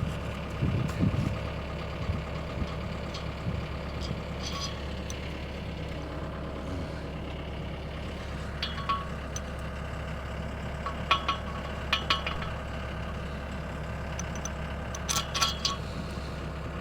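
An engine idling steadily, with several sharp metal clinks and taps of a socket wrench on the forestry mulcher's teeth as a broken tooth is swapped for a new one.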